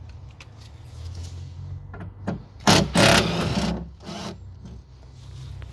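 Makita cordless impact driver undoing the T25 Torx bolt that holds the electric window regulator motor inside a car door. There is a short blip, then nearly a second of rapid rattling, then one more short burst, over a low steady hum.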